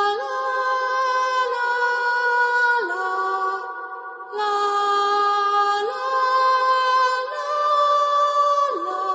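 Slow, eerie music of wordless choir-like voices holding long notes, the melody stepping to a new pitch every second or two, with a brief drop in loudness about four seconds in.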